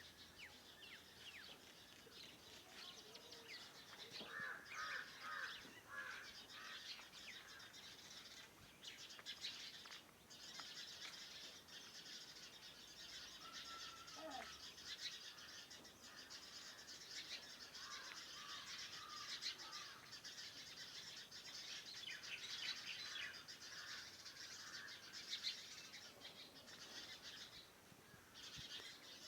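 Faint dawn chorus of several birds, with many short, overlapping chirps and calls continuing throughout.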